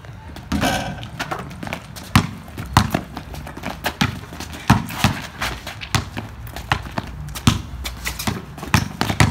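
Basketball dribbled on an asphalt driveway: a string of sharp bounces at about two a second.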